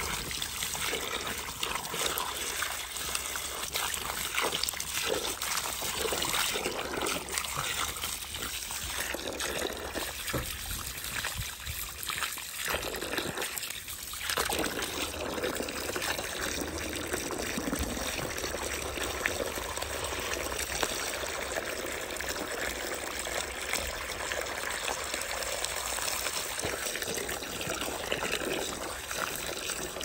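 Running water splashing and trickling as freshly peeled vegetables are washed by hand, steady throughout and briefly easing off about halfway through.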